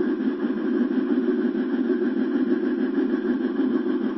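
Steady rolling rumble of an HO scale model train, a C&O 2-6-6-6 pulling a 40-car coal train upgrade, heard up close from a camera riding on the train behind the locomotive's tender.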